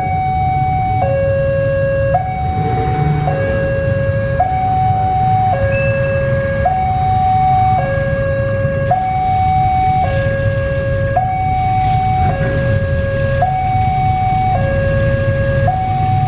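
Level-crossing warning alarm sounding a steady two-tone hi-lo pattern, each tone held about a second, over the low rumble of an approaching diesel locomotive hauling a freight train.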